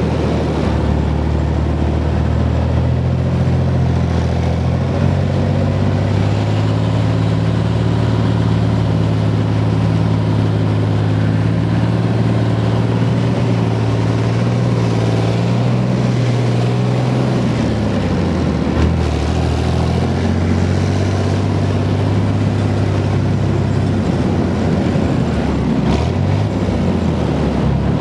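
BVP-1 infantry fighting vehicle driving, its UTD-20 V6 diesel engine running steadily under load. The engine note dips and changes about two-thirds of the way through, then carries on.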